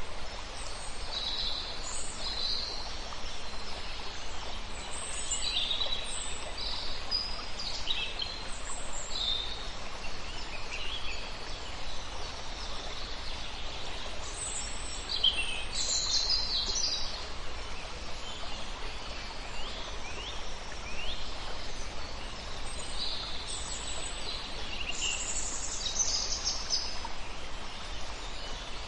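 Several small birds chirping and singing in short, overlapping phrases, over a steady background hiss.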